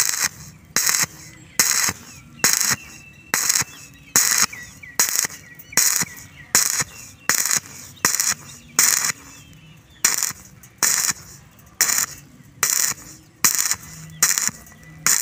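Rasping strokes in a steady rhythm, a little more than one a second, each lasting about a third of a second; birds chirp faintly between them.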